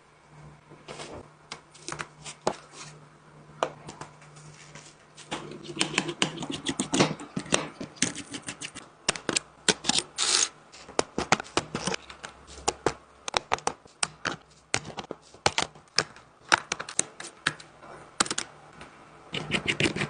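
Irregular small clicks and taps of hand tools on a smartphone's glass and metal parts during repair, coming thick and fast in places. A low steady hum sits under the first seven seconds or so and then stops.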